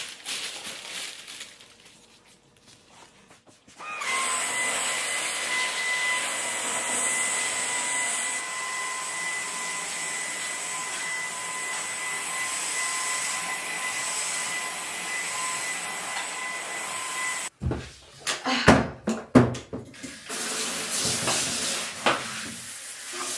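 Vacuum cleaner running steadily with a high whine, switched on about four seconds in and cut off abruptly a few seconds before the end. A few knocks follow, then water hissing from a shower hose near the end.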